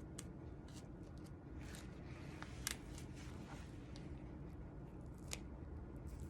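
Knife cutting and scraping through a wolf foot's hide and fat: faint, scattered small snicks and clicks, one sharper click a little before the middle, over a low steady hum.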